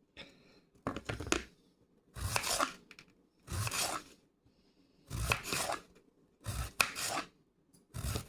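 Knife slicing through a cucumber in slow, separate strokes, about six cuts, one every second and a half or so.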